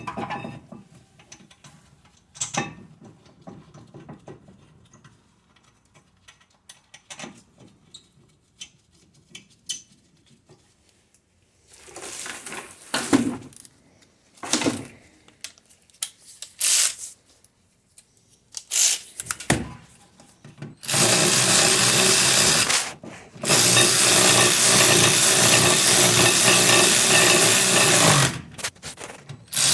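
Small metal brake parts clicking and clattering as they are handled, then a power tool runs loudly and steadily through the last third, stopping briefly once and starting again.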